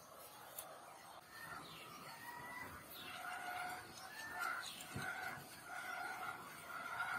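Domestic chickens calling and clucking, a faint run of short, steady-pitched notes that starts about a second in and keeps repeating.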